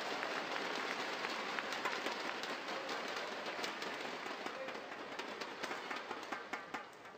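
Arena crowd applauding after a rally, a dense patter of clapping that thins out and fades towards the end, leaving a few single claps.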